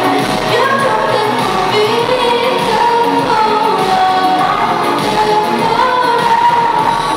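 Live electronic pop band playing, with a sung melody of long held notes that glide in pitch over a steady synthesizer backing.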